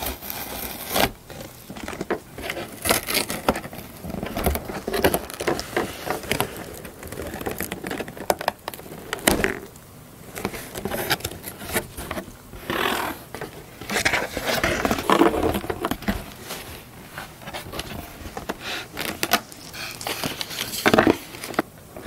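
Cardboard shipping box being opened by hand: packing tape peeled and ripped off, then the flaps pulled open and packing paper inside handled, heard as a long series of irregular scrapes, rips and crackles.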